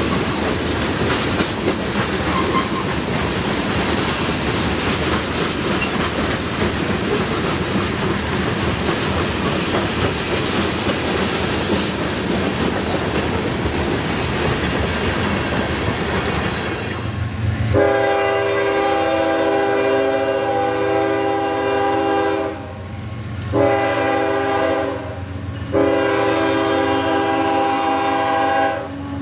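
A freight train of tank cars and covered hoppers rolling past, with a steady rumble and clatter of wheels on rail. About 18 seconds in, an approaching CSX diesel locomotive sounds its air horn in three blasts, a long one then two shorter ones, over the passing cars.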